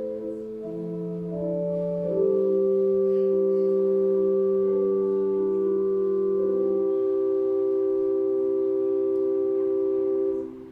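Organ playing slow, sustained chords that change every second or two, ending on a long held chord that cuts off near the end.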